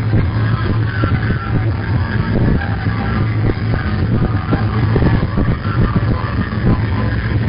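Loud dance music played over a sonido sound system, dominated by a heavy, steady bass.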